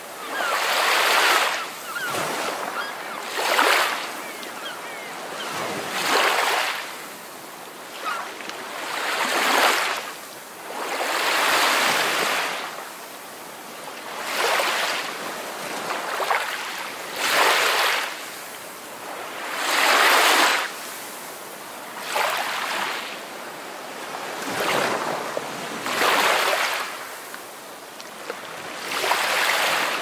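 Ocean surf, waves washing in and falling back in surges every two to three seconds.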